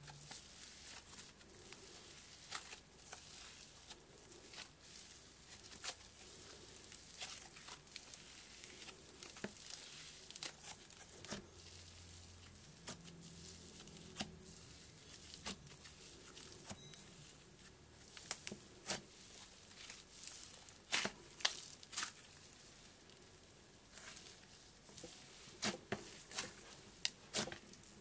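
Cloud slime being squeezed, stretched and torn apart by hand: soft tearing and crackling with many small scattered clicks and pops, which come more often in the last third.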